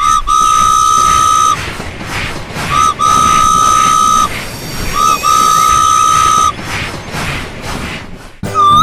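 Train whistle blowing three times, each a short toot followed by a long steady blast, with a hiss of steam-like noise between the blasts.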